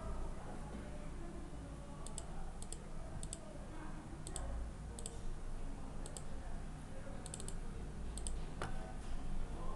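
Computer mouse button clicking irregularly, about a dozen sharp clicks, several in quick pairs, over a low steady hum.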